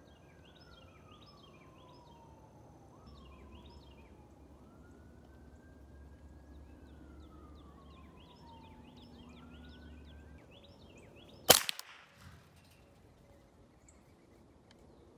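A single sharp, loud shot from a Ruger 10/22 .22 rimfire rifle about eleven and a half seconds in, with a short echo right after it. Before the shot, a distant siren wails slowly up and down, several times.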